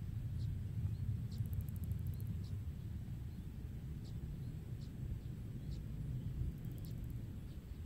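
Open-field ambience: a steady low rumble, with short high chirps about once a second and, twice, a brief fast very high trill.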